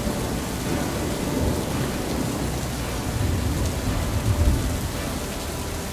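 Rain falling in a storm: a steady hiss, with low rumbles swelling about one and a half and four and a half seconds in.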